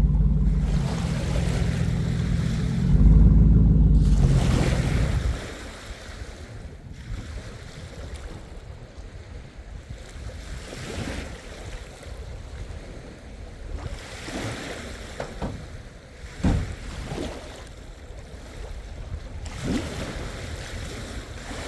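GMC Sierra pickup's engine running, rising in revs about three seconds in, then shut off about five seconds in. After that, surf washing on the beach and wind buffeting the microphone.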